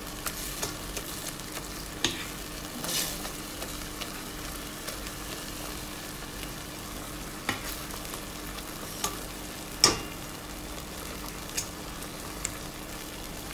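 Tomato and onion cooking in a metal pot, sizzling steadily while a metal potato masher stirs and mashes it. Now and then the masher scrapes and knocks against the pot, and the loudest knock comes about ten seconds in.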